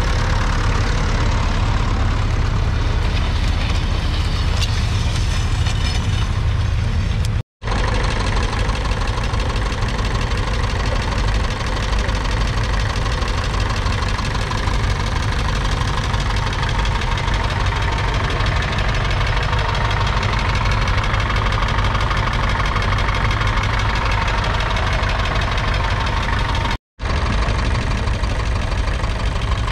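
Allis-Chalmers ED40's 2.3-litre four-cylinder diesel engine running steadily, heard close up. The sound drops out for an instant twice, once about a quarter of the way in and once near the end.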